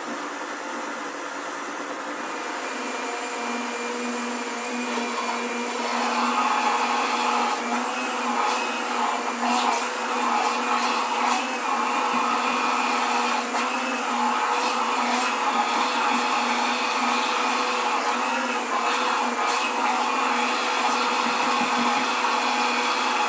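Countertop blender motor running steadily, blending thick cream with a little milk into homemade cream; it grows louder about six seconds in, with a few light clicks.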